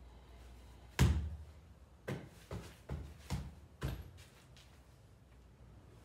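Kicks landing on a hanging Everlast heavy bag. One hard thud comes about a second in, then five lighter strikes follow about half a second apart.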